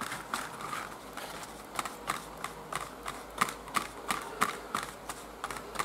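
Paintbrush stirring and dabbing white glue thinned with water in a plastic plate: a quick run of light taps and clicks, about three a second.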